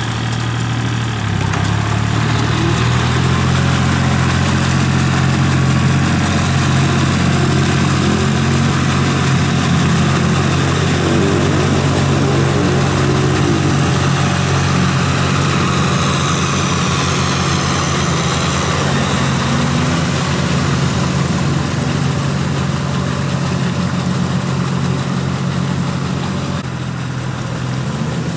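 Compact tractor engine running steadily under load while the tractor drags its cage wheels and levelling board through a flooded rice paddy, with mud and water churning.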